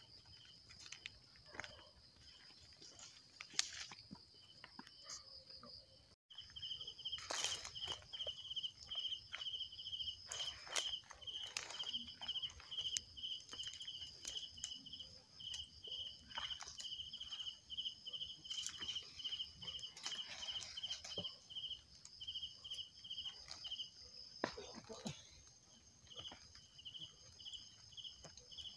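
Night insects chirping: a steady high trill, joined about six seconds in by a rhythmic chirp repeating two to three times a second. Footsteps and rustling through wet grass and brush break in now and then.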